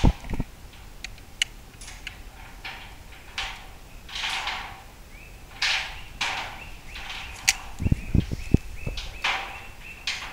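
Short scraping and rustling sounds of concrete retaining-wall blocks being handled while landscape block adhesive is squeezed onto them from a caulking gun. A few dull knocks about eight seconds in as a block is set onto the wall.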